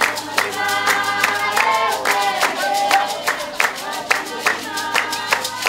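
A group singing a traditional San (Basarwa) dance song in several voices, over steady hand clapping at about two and a half claps a second.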